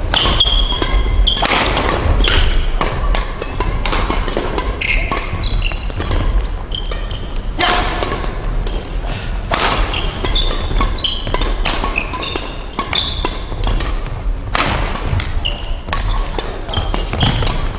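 Badminton doubles rally: rackets cracking against the shuttlecock and sneakers squeaking on the sports floor in quick, irregular succession, with footfalls, echoing in a large gymnasium hall.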